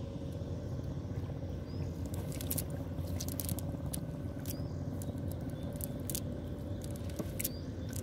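Wet nylon cast net being pulled and handled in shallow water, giving scattered crackles, squishes and scrapes as the catch is worked out of the mesh. A steady low hum runs underneath.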